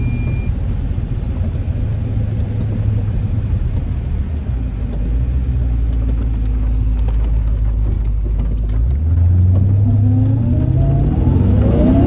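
1994 BMW E34 530i's V8 engine running steadily at low revs while driving. About nine seconds in it gets louder and its pitch rises as the car accelerates.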